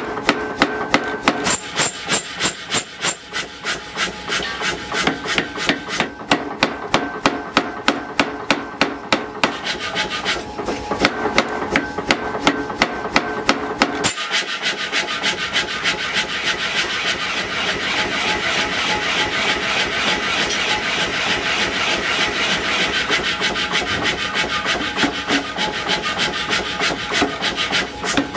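Power hammer striking a hot scrap-steel billet on its die in a steady rapid rhythm of blows. About halfway through, the blows come quicker and closer together and run into a rasping clatter.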